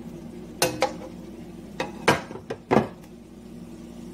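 A utensil knocking and scraping against a non-stick frying pan as wilted spinach is scooped out of it: about six sharp clatters spread over roughly two seconds.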